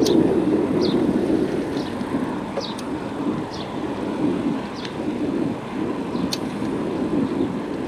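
Bicycle ride heard from a bike-mounted camera: wind buffeting the microphone and tyres rolling on a paved bike lane make a steady, uneven rumble. Faint high chirps come about once a second, with a few sharp clicks.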